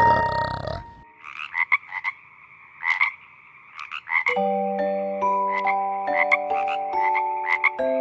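Tree frog calling in quick clusters of short, clicky croaks, a few bursts every second. Soft background music with held, stepping notes comes in about halfway through. A louder, mixed sound in the first second cuts off abruptly.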